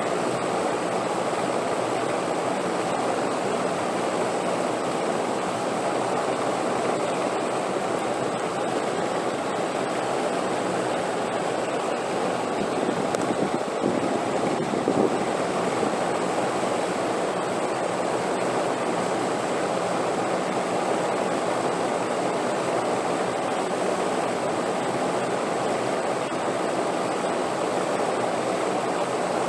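Steady wind noise, an even rushing without gusts, swelling slightly about halfway through.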